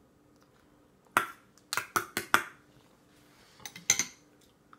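Spoon clinking and scraping against a stainless-steel bowl: a quick run of about five sharp clinks, then three more near the end.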